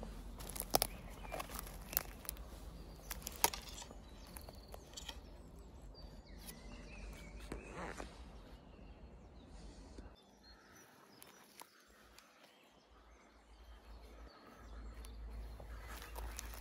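Footsteps crunching through dry twigs and dead branches on a forest floor, with sharp twig snaps in the first few seconds. The steps pause for a few seconds past the middle, then start again near the end.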